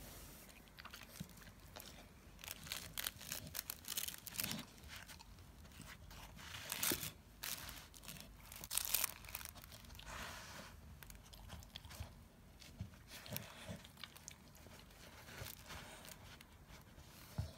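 Staffordshire bull terrier chewing and mouthing a plush duck toy: irregular crunching and crinkling of the fabric, loudest in bursts around seven and nine seconds in.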